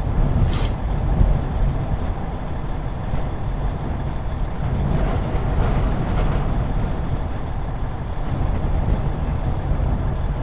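Strong gusting wind buffeting the parked truck and rushing over the microphone: a loud, steady low rumble that swells and eases, with a short hiss about half a second in.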